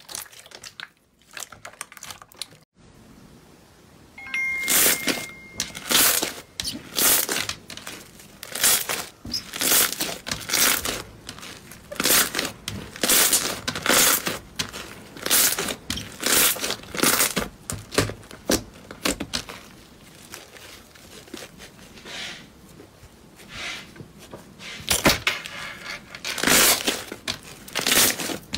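Slime being squished and pressed, giving repeated crackly, crinkling pops about once or twice a second after a quieter start.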